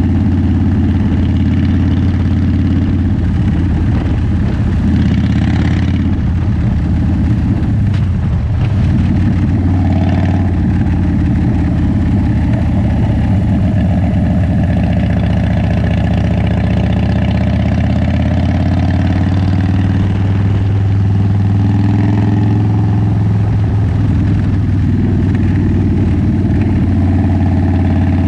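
Motorcycle engine and exhaust running steadily at a low cruising speed, heard close up from beside the rear wheel and exhaust, with slight rises and falls in pitch as the throttle changes.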